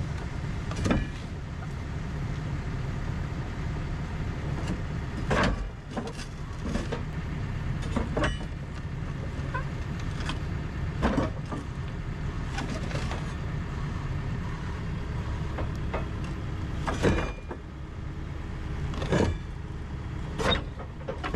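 Komatsu excavator's diesel engine running steadily, with a sharp metallic clank or knock every second or two as the thrown track is worked back onto its rollers and sprocket.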